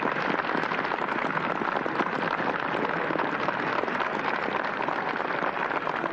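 A large crowd applauding, with steady, dense clapping.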